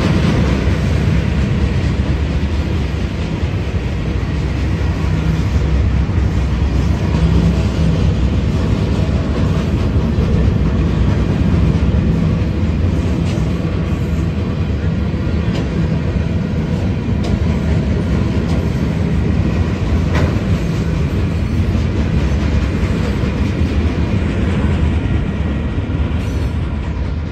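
Union Pacific freight train's cars rolling past: a steady rumble of steel wheels on the rails, with a few faint clicks.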